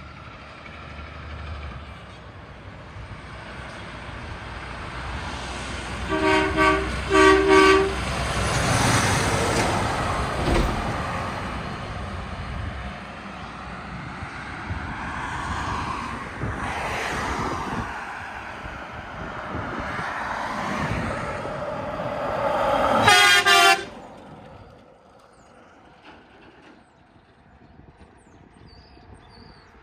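Truck air horn blown in two short blasts as a truck approaches, then the truck's engine and tyres swelling and fading as it passes. One more loud horn blast near the end cuts off suddenly.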